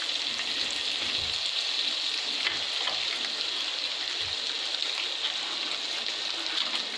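Butter melting and sizzling in a hot non-stick kadai: a steady fine hiss with faint small crackles as it foams.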